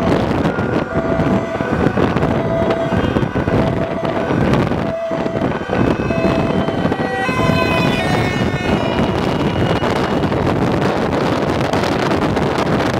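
Road and wind noise from a moving vehicle on a motorway, with wind buffeting the microphone, and an emergency-vehicle siren in the convoy sounding short repeating tones. About seven seconds in, a quick run of higher stepping tones joins in for a couple of seconds.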